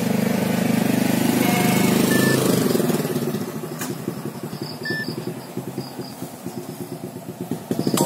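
Nokia E63 phone playing short electronic beep previews through its small loudspeaker as its alarm-tone list is scrolled. A loud low pulsing buzz runs underneath, strongest for the first three seconds.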